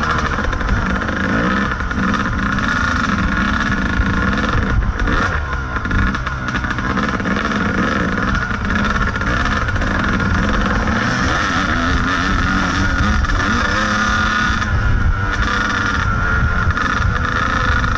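Kawasaki KDX 220 two-stroke dirt bike engine running under throttle on a trail, its pitch rising and falling as the rider works the throttle, easing off briefly about five seconds in.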